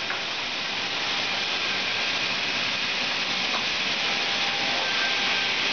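Three-head horizontal slat resaw machine running: a steady, high rushing noise from its saws and drive, growing slightly louder.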